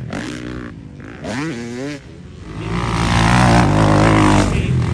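Motocross dirt bike engines running on the track, becoming loud about halfway through.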